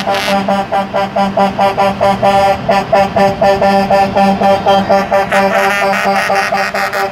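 Semi-truck air horns blowing a chord in rapid repeated blasts, about four a second.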